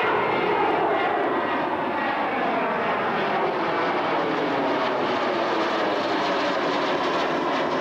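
Jet airliner with rear-mounted engines passing low overhead: loud steady jet noise that cuts in suddenly, with whining tones gliding down in pitch as it goes by.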